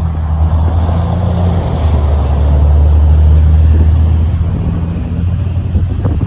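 A motor vehicle's engine running close by: a low, steady hum that swells to its loudest around the middle and then eases off.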